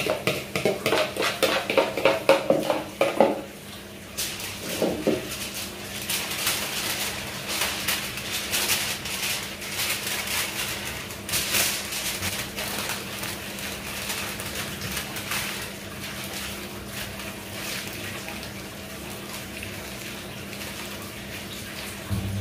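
A spoon scraping and clattering rapidly against a bowl for the first three seconds or so, then aluminium foil crinkling and rustling in irregular bursts as it is folded and crimped into a parcel.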